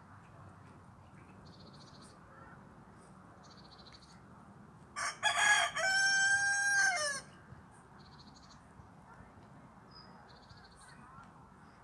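A rooster crows once, about five seconds in: a choppy start, then a long held note that drops at the end, about two seconds in all. A few faint short high chirps sound now and then on either side of it.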